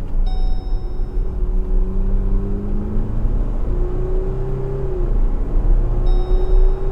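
MG Gloster's 2.0-litre twin-turbo four-cylinder diesel under full-throttle acceleration, heard from inside the cabin. The engine note climbs steadily, drops as the automatic gearbox shifts up at around 4000 RPM, and climbs again. A short high electronic beep sounds near the start and again near the end.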